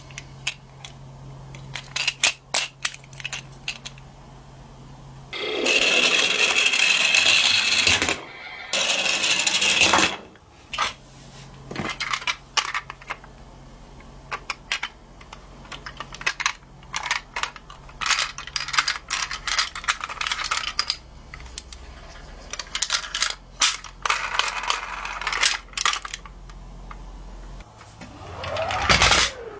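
Die-cast toy ambulances handled in a cardboard box: many small metal-and-plastic clicks and clinks, with two stretches of louder scraping from about five to ten seconds in. Near the end a toy car rolls down a wooden ramp, its wheel noise rising in pitch as it speeds up.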